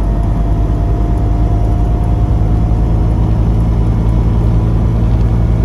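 Lada Niva's four-cylinder engine and road noise heard from inside the cabin while cruising at about 100 km/h. It is a steady low drone that grows a little stronger near the end, with no whine from the transfer case, which has been quieted by swapping its shift levers for electric-motor actuators.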